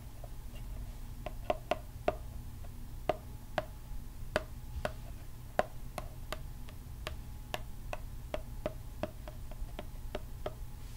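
Long fingernails tapping on an eyeshadow palette: sharp, irregular clicks about two to three a second, starting about a second in, over a steady low hum.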